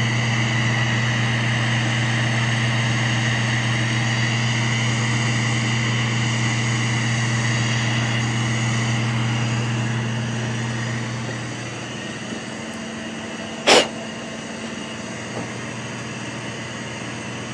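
Carlisle CC glassworking bench torch running its big flame against a block of cedar, a steady hissing rush. The noise eases off about ten to twelve seconds in, and a single sharp click follows a little later.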